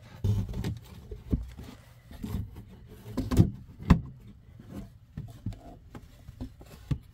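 Wooden step panel being worked back into place in a van's entry step well: irregular knocks, thumps and scrapes of wood against the frame, the sharpest knocks about three and a half and four seconds in.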